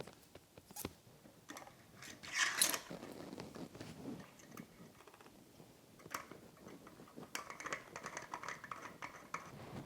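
Faint metallic clicks and scraping as a quick-release skewer is slid through the ebike's front wheel hub and its nut and lever are worked into place. There is a brief scrape about two and a half seconds in and a longer run of rattling clicks near the end.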